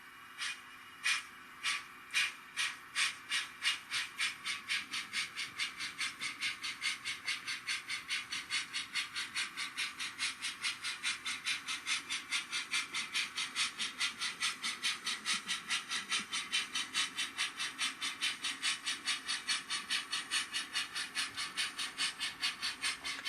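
Sound-fitted Rapido OO gauge model of the locomotive Lion, its decoder playing steam exhaust chuffs through the small onboard speaker. The chuffs start slowly and quicken over the first few seconds to a steady, fast beat as the model picks up speed.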